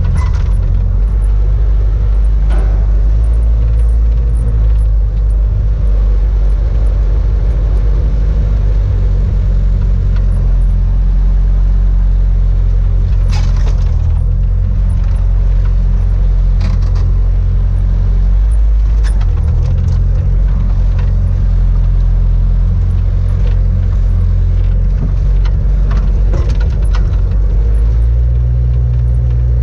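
Bobcat S100 skid-steer loader's diesel engine running loud and steady, heard from inside the cab while the machine drives carrying a load of aerated-concrete rubble. The engine note shifts a little at about two-thirds of the way through and again near the end, and occasional clanks and rattles sound over it.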